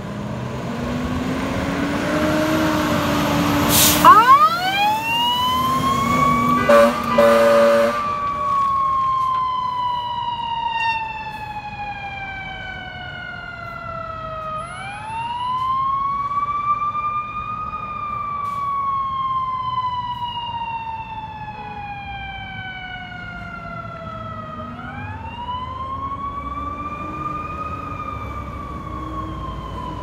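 Fire department hazmat truck responding: its diesel engine revving up, a loud blast at about four seconds, a few horn honks around seven seconds, then its siren in a slow wail that rises quickly and falls slowly over about ten seconds, repeating and growing fainter as the truck drives away.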